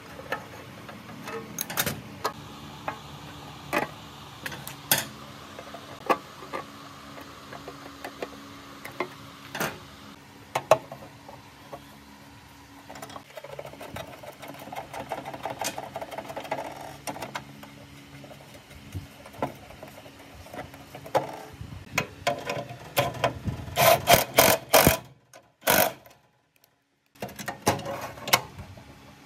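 Irregular clicks, taps and knocks of small metal parts and hand tools being handled. There is a short rapid rattle about halfway through and a loud burst of clicking near the end.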